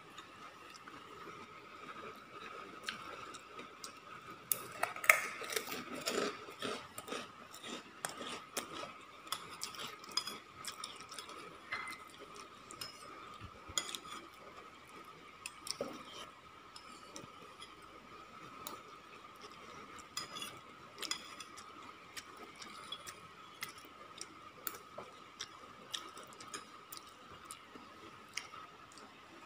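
Metal spoon scraping and clinking against a ceramic bowl while scooping up leftover rice: scattered light taps and scrapes, busiest a few seconds in.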